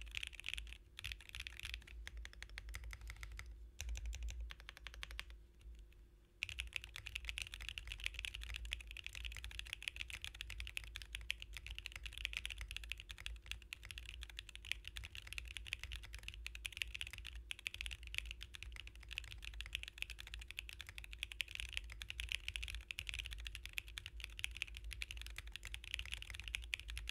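Typing on a mechanical keyboard fitted with all-nylon Akko Botany linear switches. A few separate keystrokes come first, then steady fast typing starts about six seconds in.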